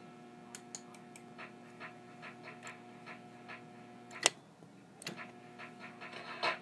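Faint room tone: a steady electrical hum under a run of soft, slightly uneven ticks, about two to three a second. Two sharper clicks stand out a little past the middle.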